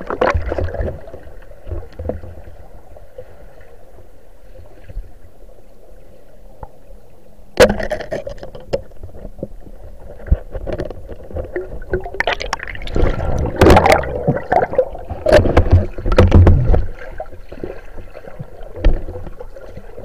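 Underwater camera sound during night spearfishing: a steady low rushing of river water, a sudden sharp knock about seven and a half seconds in, then loud, irregular churning and knocking for several seconds.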